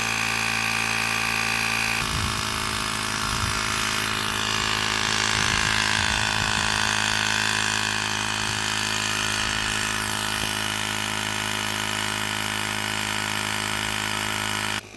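Portable tire inflator's compressor running steadily to pump up a plugged tire, its tone shifting about two seconds in and cutting off suddenly near the end.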